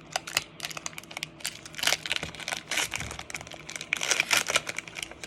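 Foil Pokémon Fusion Strike booster pack wrapper crinkling in the hands as it is torn open, a run of irregular crackles.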